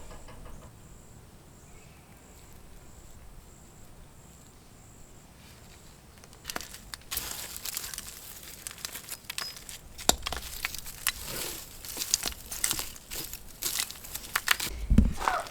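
Dry debris from inside an old wall cavity, rustling and crinkling as it is picked out by hand, with a few light knocks. It is faint for the first several seconds and starts about six seconds in.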